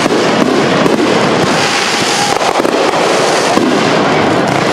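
Aerial fireworks going off: a dense, unbroken run of pops and crackling.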